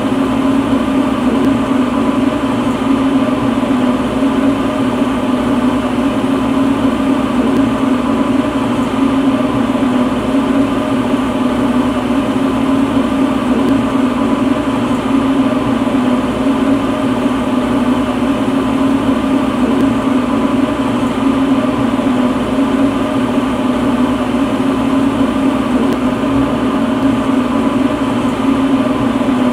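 Lampworking glass torch burning steadily: a constant, even roar with a steady low hum under it.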